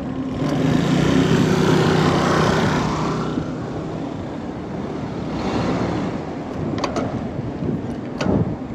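A car passing close by, its engine and tyre noise swelling for about three seconds, followed by a fainter second passing about two seconds later, with a few sharp clicks near the end.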